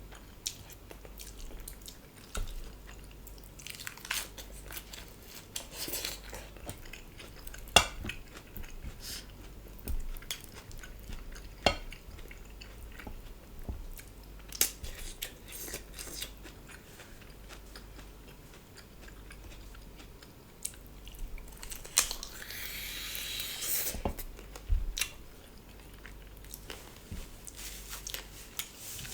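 Close-miked chewing and biting of food, with scattered sharp clicks throughout and about two seconds of hissing noise roughly three-quarters of the way through.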